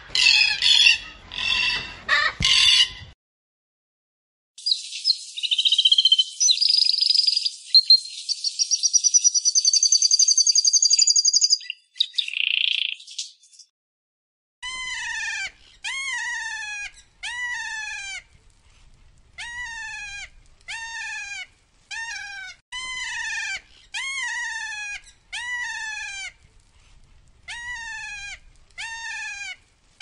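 Bird calls in three parts. First a black cockatoo gives harsh screeching calls for about three seconds. After a pause comes a canary's high trilling song, and from about halfway through a parrot gives a run of short calls, each sliding downward in pitch, repeated in small groups.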